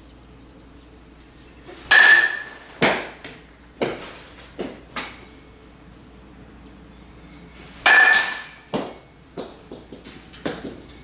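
Metal baseball bat striking a ball twice, about six seconds apart, each hit a sharp ping with a short ring. Each hit is followed by a few lighter knocks.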